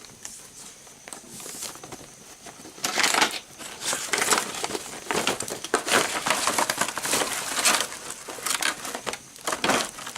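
A parcel being unpacked by hand: packaging rustling, crinkling and crushing in irregular bursts, louder from about three seconds in.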